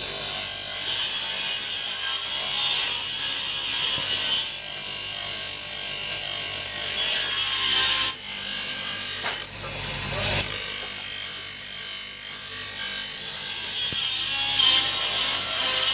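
Stanley grinder running with the teeth of a circular saw blade held against its wheel, a steady high grinding over a low motor hum. The grinding breaks off briefly a little past halfway, then carries on.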